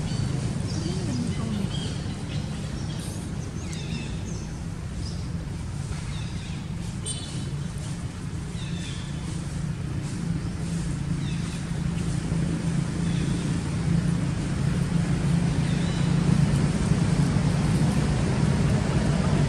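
Steady low outdoor rumble, growing louder in the second half, with scattered faint high chirps over it.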